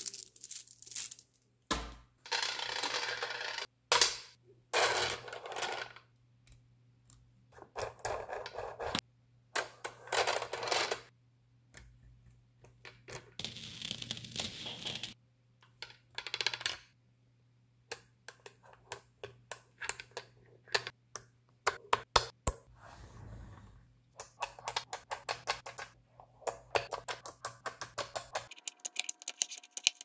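Small metal magnetic balls being handled: squeezed, pulled apart and snapped together by hand, in a run of sharp clicks and short rattling bursts with brief pauses between.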